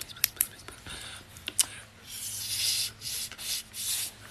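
A few small clicks, then three breathy blowing bursts with no whistle tone, made by a person blowing hard into his hands: an attempt to sound something that isn't working.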